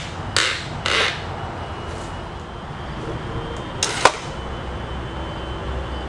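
Metal bar clamps being set and tightened on a wood glue-up, giving a few sharp clacks, the loudest pair about four seconds in.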